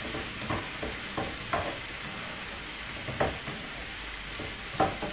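Vegetables sizzling as they stir-fry in a pan, with a spatula stirring them and scraping or knocking against the pan about five times.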